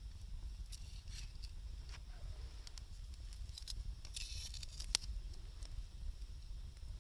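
Wood fire crackling with irregular pops, a cluster of crackle just past four seconds in and one sharp pop about five seconds in, over a steady low rumble.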